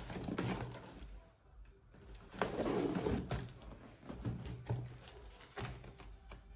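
Cardboard packaging being handled: a boxed utensil set slid and lifted out of a shipping carton, a scraping rustle about two seconds in and a few light knocks of box against carton.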